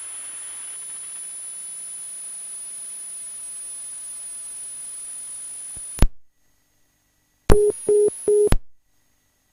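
Phone-call audio taken straight from an HTC mobile phone: a steady hiss of the open line with a thin high whine, a sharp click about six seconds in as the audio cuts to dead silence, then three short beeps near the end. The call's connection is dropping after the Bluetooth headset goes under the water.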